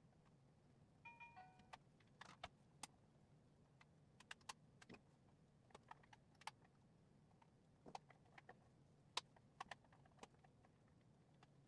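Scattered light clicks and taps of a plastic microscope head and small tools being handled during disassembly, with a short squeak about a second in. The loudest tap comes about three-quarters of the way through.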